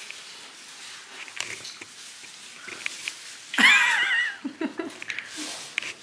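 A short, high-pitched, wavering vocal squeal from a person, lasting under a second about two-thirds of the way in, amid faint light clicks and rustling.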